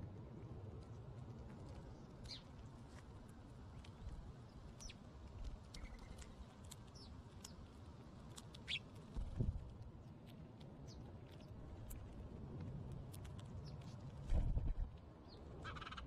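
Birds feeding at a dish of birdseed: many scattered short, high ticks over a steady low rumble, with two heavier low thumps about nine and fourteen seconds in.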